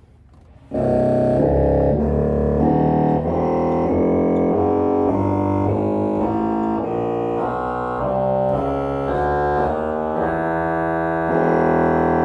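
1972 Austin pipe organ playing a short passage of chords over a sustained pedal bass on its bright 16- and 8-foot Posaune trumpet reed, starting about a second in and swelling into a held chord near the end.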